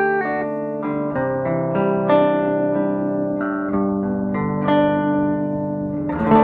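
Electric guitar played through a Sano 16WR vintage tube combo amplifier: a run of single notes and chords, each picked and left to ring, with a new note every half second to a second.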